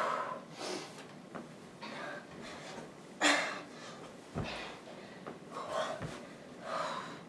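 A woman breathing hard from exertion, with forceful, noisy exhales every second or so, the loudest about three seconds in. Two dull thumps of a body landing on a carpeted floor come in the second half.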